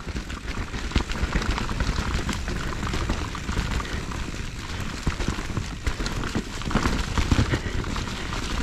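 Mountain bike riding down a rough, technical trail: a constant irregular clatter of tyres and bike over roots and rocks over a low rumble.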